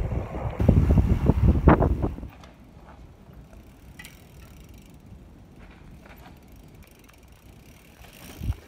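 Mountain bike ridden fast on a paved path, a loud rumble with rapid rattling clicks that cuts off suddenly about two seconds in. Then faint clicks and tyre noise from a mountain bike ridden down a forest dirt trail, with a single thump near the end.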